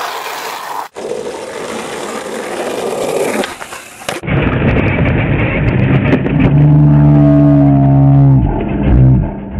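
Skateboard wheels rolling and sliding on concrete with a few clicks, recorded through the camcorder's own microphone and changing abruptly between clips. In the second half a loud steady drone of several tones lasts about two seconds, then drops in pitch near the end.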